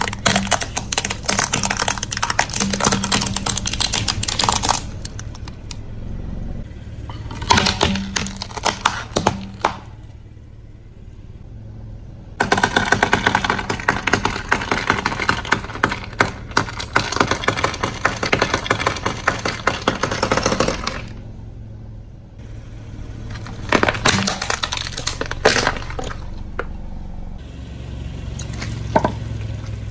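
Car tyre slowly rolling over and crushing brittle objects on concrete: Christmas baubles crackling and shattering at the start, then a long run of dense cracking and snapping as a row of hard plastic pieces breaks under the tyre, and a few sharp single cracks near the end.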